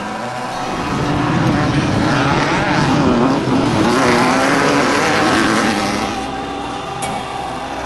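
Off-road desert race vehicle's engine passing close by. It gets louder for a few seconds, its pitch rising and falling with the throttle, then drops back to a steadier, quieter engine sound near the end.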